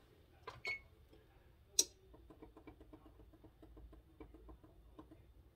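Stove timer being set: a few faint clicks, one sharper click just under two seconds in, then a run of quick, even ticks, about six a second.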